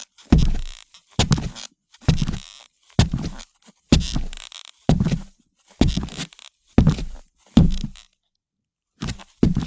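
Boots walking on a parquet wooden floor: about ten heavy heel-and-sole footfalls at a steady pace, roughly one a second, with a brief pause near the end before the steps resume.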